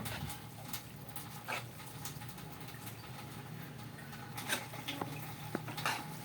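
Two spoons mixing sauced spaghetti noodles in a pan: soft wet sounds with scattered light clicks of spoon on pan, over a faint steady low hum.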